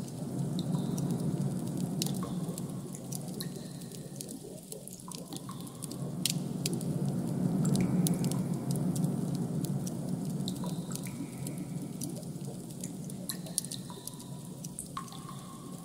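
Ambient background sound design: a steady low noise bed with irregular small clicks and drip-like ticks, and brief faint tones now and then.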